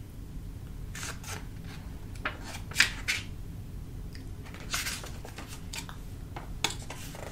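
Clear plastic wrapping crinkling and rustling in short bursts as it is handled, with a sharp click about three seconds in and another near the end.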